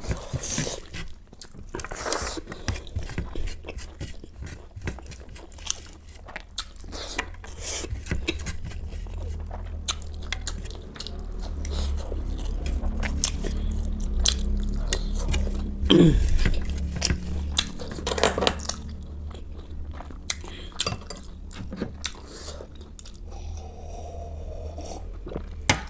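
A person chewing and biting food close to the microphone, with crunching and wet mouth clicks scattered throughout, over a steady low hum.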